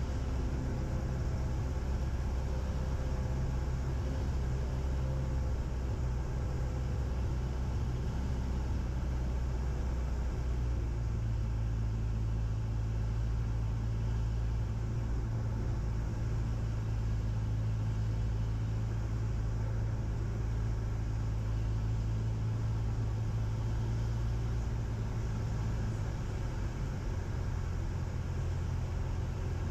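Cessna 172's piston engine and propeller droning steadily inside the cockpit on approach to land. The low drone shifts pitch about a third of the way in and again near the end, as the power setting changes.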